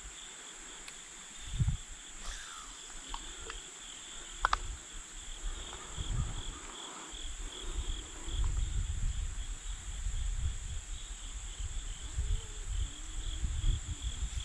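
Insects chirping in a steady, high, pulsing chorus, with low rumbling noise on the microphone coming and going, heaviest in the second half, and a couple of sharp clicks.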